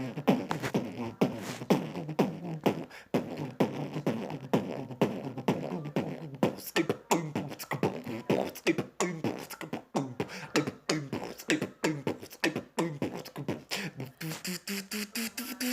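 Human beatboxing in an electronic-dance-music style: a fast, steady beat of mouth kick, snare and hi-hat sounds with pitched vocal bass tones woven in. Near the end a fast pulsing buzz comes in and rises steadily in pitch, like a synth build-up.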